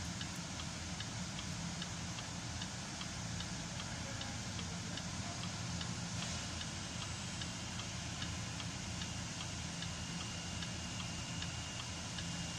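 Land Rover engine idling steadily with a light, regular ticking, about three ticks a second, and a faint high whine coming in about halfway. The misfire is cured: a burnt fuel injector O-ring has been replaced.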